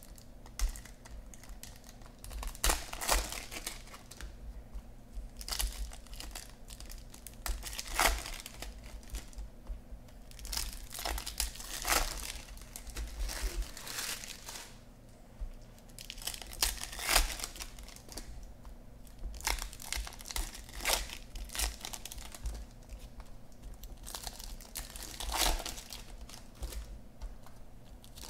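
Foil wrappers of Topps Chrome baseball card packs crinkling and tearing as the packs are ripped open, with the cards inside being handled. Irregular rustling, with louder crackly bursts every few seconds.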